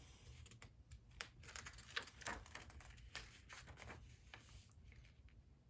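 Near silence with faint, scattered paper rustling and small clicks: the pages of a picture book being handled and turned.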